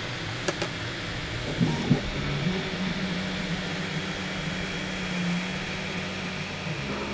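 3D printer printing a layer: its stepper motors give a steady low hum that shifts slightly in pitch as the print head and bed change moves, over the steady hiss of the cooling fans. A few short clicks in the first two seconds.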